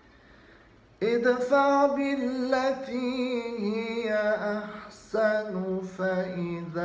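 Qur'an recitation in a melodic, drawn-out chanting style by a single voice. The voice enters about a second in with long held phrases that slide between notes, and breaks off briefly near five seconds before going on.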